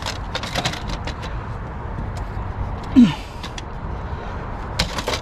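Scattered clicks and knocks of printer parts being handled during teardown, with a short falling grunt about three seconds in, over a steady low background rumble.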